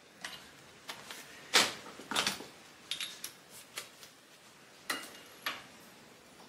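Steel hand tools, sockets and bolts clinking and knocking as they are handled, in a scattering of separate sharp clanks.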